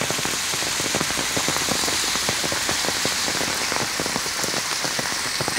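Steady rain falling, a dense patter of many small drop impacts over an even hiss.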